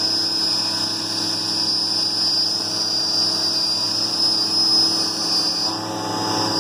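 CNC milling machine cutting the outer contour of a part with a carbide end mill: steady spindle and cutting noise with a high-pitched whine that drops away about six seconds in and comes back near the end. The cut is going cleanly.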